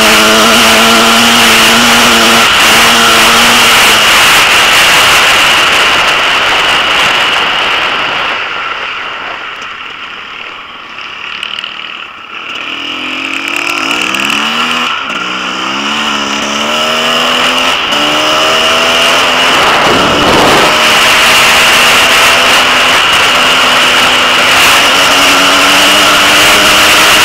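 Motocross bike engine heard from the rider's onboard camera, loud, with a steady rushing hiss over it. Near the middle the engine falls away to a quieter, lower note for a few seconds, then revs back up in rising pitch sweeps, with a short rush of noise a few seconds later, and runs on steadily to the end.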